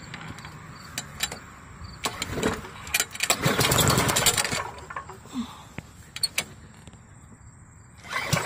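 Freshly primed Tecumseh 3.5 HP engine on a Yard Machine push mower being pull-started with its recoil cord. It turns over in a short loud burst of about a second and a half but does not keep running, and a second pull begins near the end: the engine fails to start.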